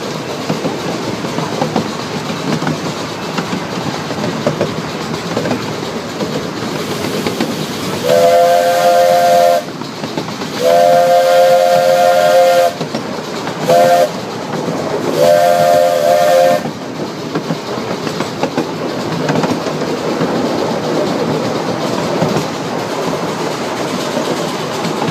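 Steam locomotive whistle sounding a chord of several tones in four blasts, long, long, short, long, over the steady noise of the train rolling along the track. Long-long-short-long is the standard signal for a train approaching a grade crossing.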